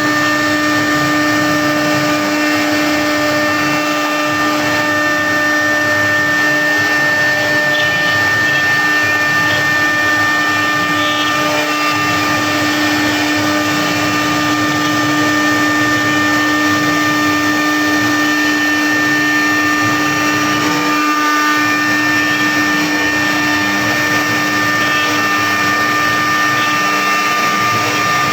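CNC machine cutting: a steady, unbroken machine whine of several held tones over a rushing noise.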